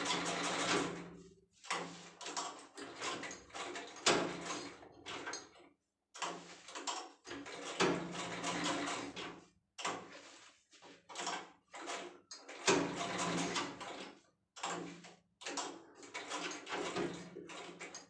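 Hand-cranked sewing machine stitching through fabric in several short runs of one to a few seconds, with brief pauses between runs.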